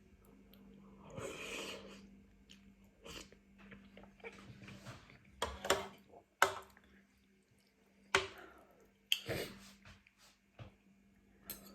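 A person eating spicy noodles and rice cakes close to the microphone: irregular chewing and mouth sounds, with a few sharp clicks scattered through.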